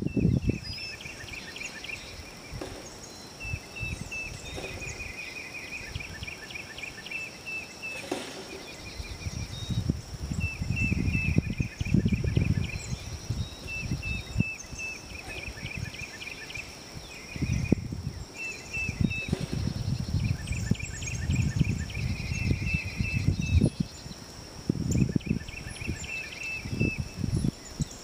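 Wind gusting on the microphone in uneven low rumbles, over short rapid series of high chirping calls repeated every second or two and a faint steady high hum.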